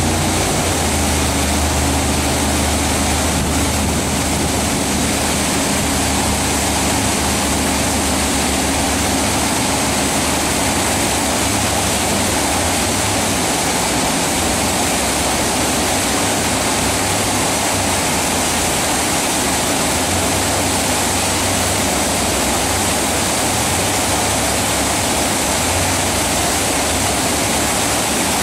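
Steady roar of a big whitewater rapid at high water, with the low drone of a jet boat's engine rising and fading several times as it powers through the wave train.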